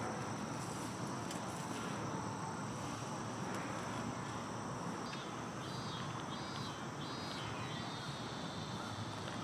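Outdoor background noise with a steady high insect drone, and a few short high chirps a little past halfway.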